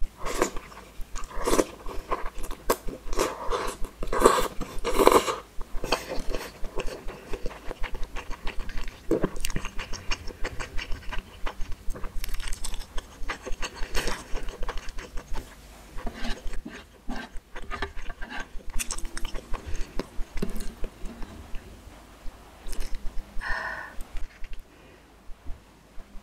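Close-miked eating of spicy ramen noodles: noisy slurps of noodles in the first several seconds, then steady wet chewing with lip smacks and mouth clicks.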